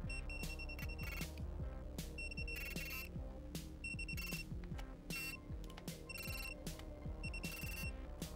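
Digital torque wrench beeping in short bursts of rapid high beeps, about one burst a second, signalling that the front axle pinch bolts have reached the set torque of 19 N·m. Background music with a steady beat runs underneath.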